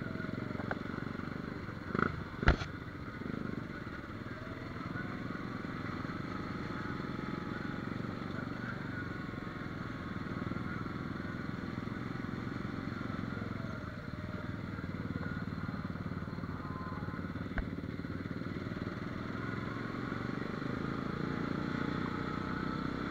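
ATV engine running as the quad rides along a muddy trail, its pitch rising and falling with the throttle. Two sharp knocks about two and a half seconds in, and a smaller click late on.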